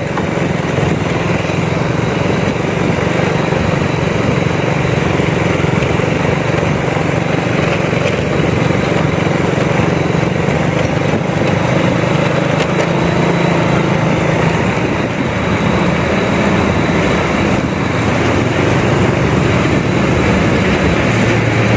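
Motorcycle engine running steadily while riding, its pitch shifting partway through, with a steady rush of wind and road noise over it.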